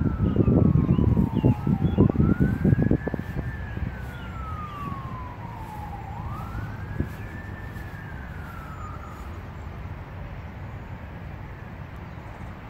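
An emergency vehicle siren wailing, its pitch sliding slowly down and up several times before fading out about nine seconds in. Wind gusts buffet the microphone in the first three seconds, louder than the siren.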